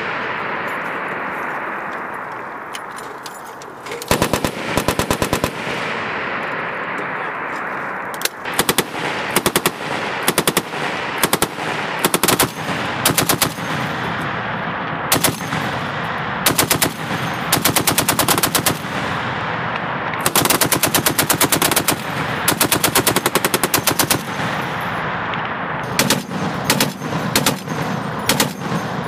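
Browning M2 .50-calibre heavy machine gun firing in many short bursts of rapid shots, about a dozen of them starting some four seconds in, over a steady rushing background noise.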